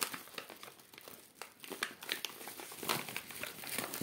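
Kraft paper bag of whole-grain wheat flakes rustling and crinkling as it is handled, in irregular crackles.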